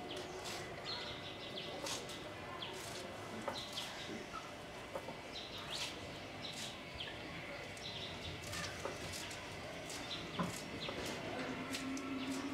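Repeated short, crisp snips of leaves being sliced against the curved blade of a boti, with birds chirping around.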